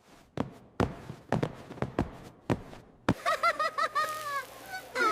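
A run of sharp taps or knocks, roughly two a second, then from about three seconds in a high-pitched, squeaky, warbling voice-like sound.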